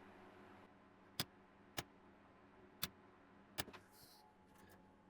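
Near silence broken by four short, sharp clicks at uneven spacing, over a faint steady hum.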